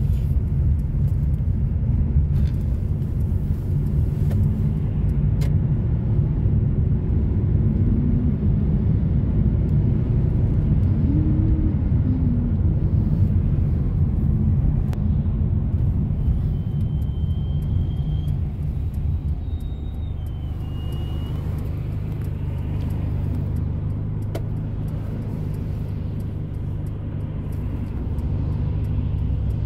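Steady low rumble of a moving car heard from inside its cabin: engine and road noise, easing a little about two-thirds of the way through.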